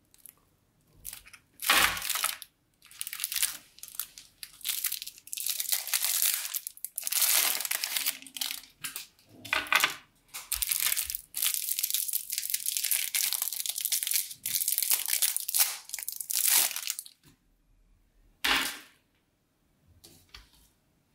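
Clear cellophane lollipop wrappers crinkling and rustling as they are handled and pulled open, in irregular spells with short pauses. The crinkling stops about three quarters of the way in, with one last short rustle after.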